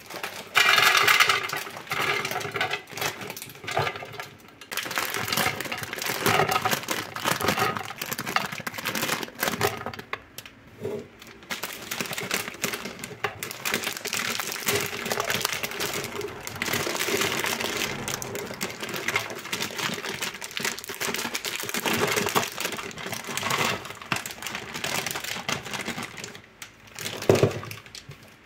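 Dried fruit mix poured from its plastic bag into a clear canister: a continuous clatter of small pieces dropping in, with the bag crinkling. One thump near the end.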